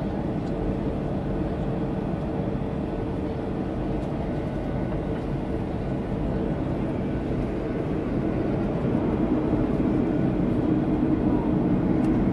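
Cabin noise of a Boeing 737-800 in flight: a steady low roar of the CFM56-7B engines and airflow over the fuselage. It grows slightly louder and deeper about three-quarters of the way through.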